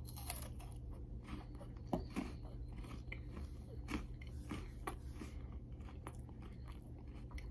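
A person biting into and chewing a Kit Kat chocolate wafer bar: faint, irregular crunches of the wafer as it is chewed.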